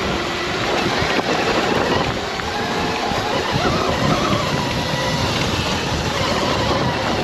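Throne Serpent electric dirt bike riding a loose, dusty dirt trail: steady wind rush on the microphone and tyre noise over the dirt, with a faint motor whine rising and falling.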